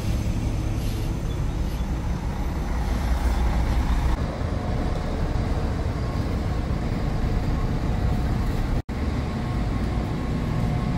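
Coach bus engines running, a steady low rumble with a split-second break about nine seconds in.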